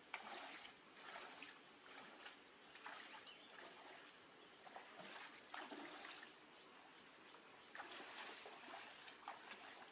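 Faint splashing footsteps of someone wading through a shallow stream, a step about every second, over the steady running of the water.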